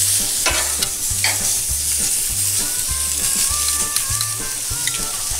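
Veal fillet sizzling steadily on the hot grates of a gas grill. Metal grill tongs click against the meat and grate a couple of times early on as the fillet is turned.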